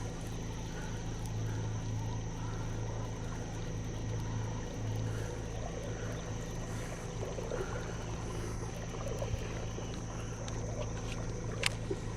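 Steady low hum of a boat motor running, with a thin, steady high whine above it and a few light clicks near the end.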